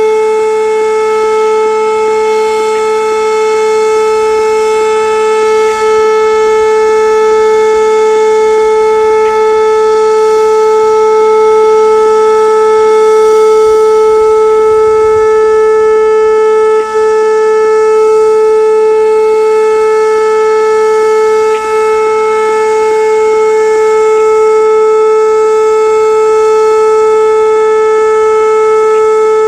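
Whelen WPS-2809 electronic outdoor warning siren sounding a steady alert tone, held at one unwavering pitch of about 435 Hz. Its loudness dips for a moment twice.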